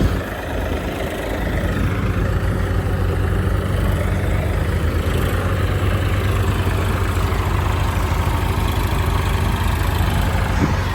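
Heavy diesel engine running steadily, with a low even hum.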